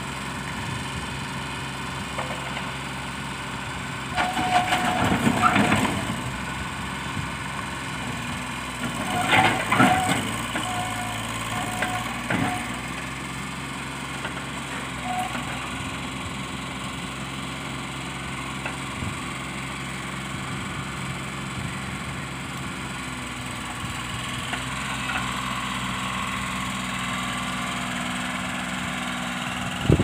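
Komatsu PC20 mini excavator's small diesel engine running steadily as the machine works on the truck's loading ramps. It swells twice into louder, harsher bursts, about four and nine seconds in, with a shorter one a little later.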